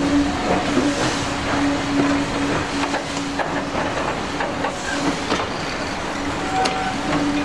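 Steam-hauled train of passenger coaches rolling past, its wheels clicking over the rail joints, with the locomotive's steam exhaust in the mix and a steady low tone under it.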